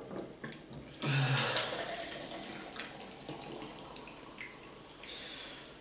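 Carbonated orange Fanta poured from an aluminium can into a drinking glass. The pour splashes in about a second in, then runs and fizzes, slowly fading, with a second hissing swell near the end.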